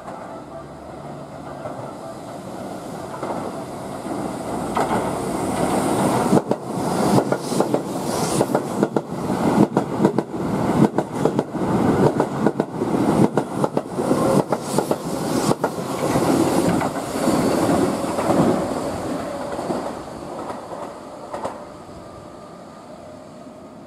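Keihan 8000 series electric train passing through a station at speed without stopping. The sound builds, peaks with a dense clatter of wheel clicks as the cars go by, then fades away.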